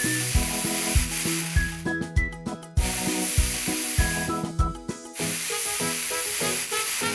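Cartoon welding sound effect: a steady hiss that runs in three long stretches with two short breaks, over bouncy children's background music.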